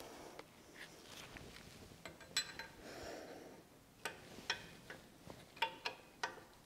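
Small metal parts and tools clinking and tapping against a milling machine head as they are handled, with soft rustling between the taps. The clicks come in a quick run of sharp ones between about four and six and a half seconds in.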